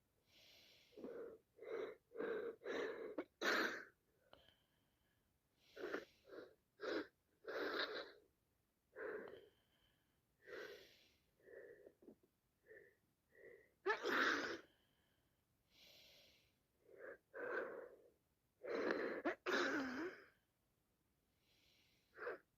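A woman with a congested, sinusitis-blocked nose sniffing and breathing in short, repeated bursts, broken by several loud sneezes.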